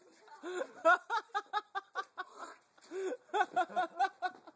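Hearty human laughter: two long runs of quick, high-pitched laughs with a short break between them.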